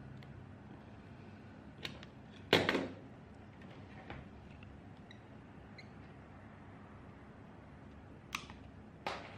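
Hand tools and an Ethernet cable being handled on a wooden desk while the cable is stripped for an RJ45 plug: one loud knock about two and a half seconds in, a few light clicks, and two more sharp clicks near the end, over a steady low hum.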